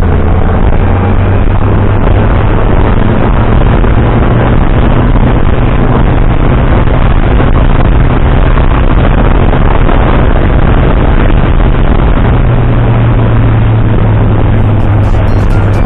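Kawasaki Ninja 1000's inline-four engine running at a steady pace on the move: a steady low drone under a thick, even rush of wind and road noise.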